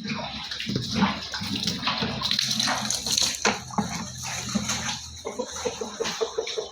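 Water splashing and sloshing, with many short splashes, as in washing or bathing in a tub or basin.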